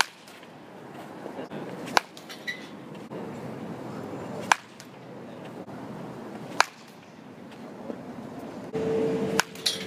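A baseball bat striking pitched balls in sharp single cracks, about four of them roughly two seconds apart.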